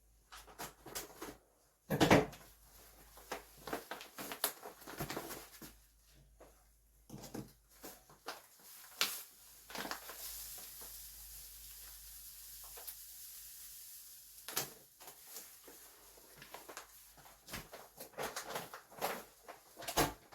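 Kitchen handling sounds while diced pear and sugar are layered into a glass jar: a run of small knocks and clinks of utensils and glass, the sharpest about two seconds in. A steady hiss lasts a few seconds around the middle.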